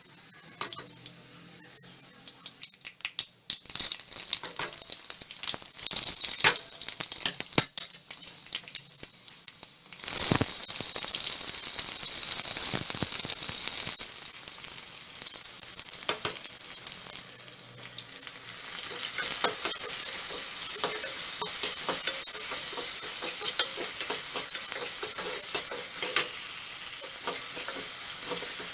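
Food frying in hot oil in a pan, with a spatula stirring, tapping and scraping. About ten seconds in, a sudden louder sizzle starts, as when something is added to the hot oil. It then settles into steady frying with stirring, briefly quieter a few seconds later.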